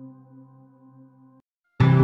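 Background music: a soft, sustained ambient track fades and cuts off about one and a half seconds in, and after a brief silence a louder music track starts near the end.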